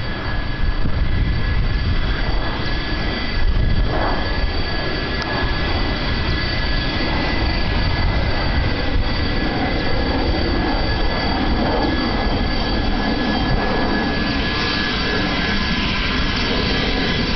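Boeing 767-300ER's jet engines during landing: a loud, steady rush with thin high whining tones on top.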